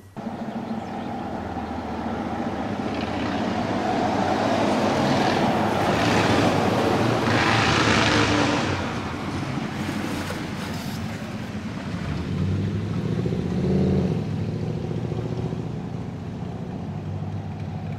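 Road vehicle running past, loudest about eight seconds in, with a steady low engine note throughout that swells again near fourteen seconds.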